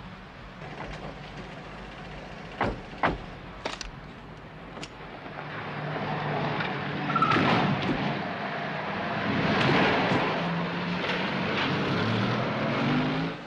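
Car doors slamming three times, then the engines of a motorcade of cars and motorcycle outriders pulling away and driving past, growing louder.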